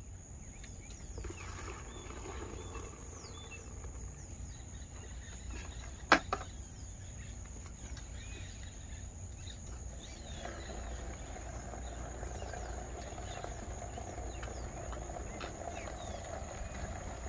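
Insects droning steadily in a high, even tone over a low outdoor background rumble, with one sharp knock about six seconds in.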